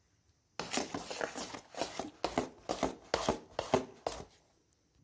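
Metal spoon stirring thick semolina-and-flour malpua batter in a metal bowl: wet scraping and slapping strokes, two to three a second, starting about half a second in and stopping about four seconds in.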